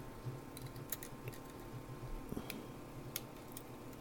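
Faint, scattered small clicks and taps of plastic parts being handled, about six in all, as a ribbon cable is worked at its socket on a floppy drive's circuit board, over a low steady hum.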